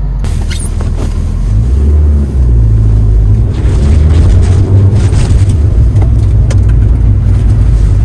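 Cabin noise of a 1987 Nissan Pulsar being driven: a loud, low rumble of engine and road. It builds about a second and a half in, dips briefly just after two seconds, and carries a few light clicks.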